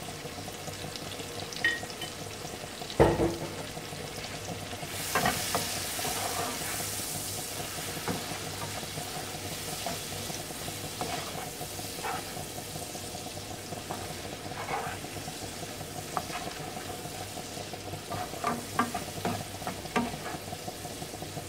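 King prawns, onion and spices sizzling in hot oil in a frying pan while a wooden spatula stirs and scrapes them, with many light knocks of the spatula against the pan. A sharp knock about three seconds in, and the sizzle briefly louder about five seconds in.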